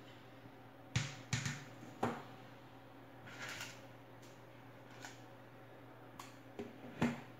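Plastic knocks and clatters as a plastic basket and a plastic bowl are handled and lifted off the top of a cardboard-box egg incubator. There are three knocks in the first two seconds, a brief scrape in the middle, then a few light taps and a last sharp knock near the end, over a steady low hum.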